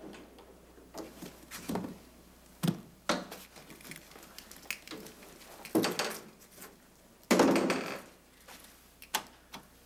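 A door and a leather travel bag being handled: several sharp clicks and knocks, with two longer rustles about six and seven and a half seconds in.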